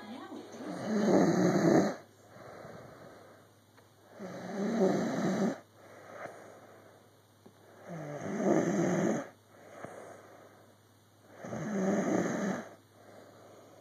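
Snoring in a steady rhythm: four loud snores, each about a second and a half long and coming about every three and a half seconds, with quieter breaths between them.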